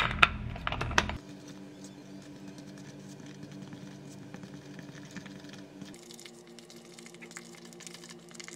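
Spatula stirring green modeling-mask powder and toner into a paste in a small plastic mask bowl: a few sharp knocks in the first second, then a steady run of light clicking and scraping.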